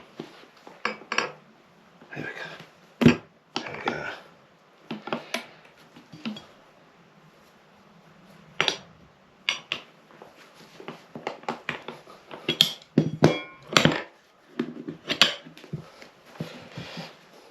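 Metal tyre irons clinking, knocking and scraping against a motorcycle wheel rim while a tyre is levered off, with irregular sharp clanks, some ringing briefly, and rubbing of rubber between them.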